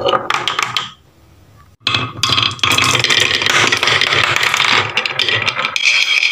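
Balls rolling and clattering down a wooden marble run: a steady rolling rumble with many small clicks as they knock against the wooden track and each other. The sound falls away suddenly about a second in, then comes back as several balls roll at once.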